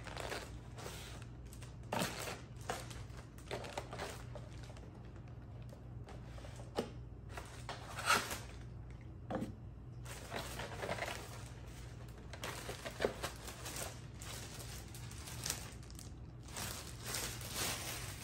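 Clear plastic takeout bag rustling and crinkling while a cardboard box, a foam clamshell container and a sauce cup are lifted out and set down on a table, with scattered light knocks.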